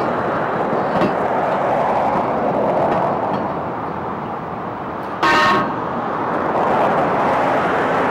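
Road traffic passing close by, swelling and fading, with one short car horn toot a little over five seconds in.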